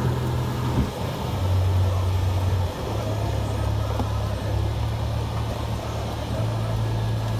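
Vehicle noise heard from inside a car's cabin: a steady low rumble with a hiss over it.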